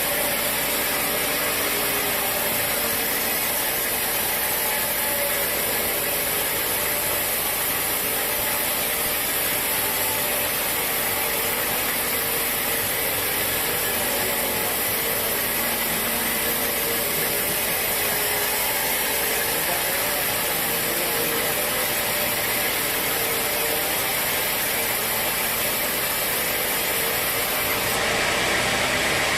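Sawmill machinery running steadily with an engine-like drone, its tone shifting slightly near the end.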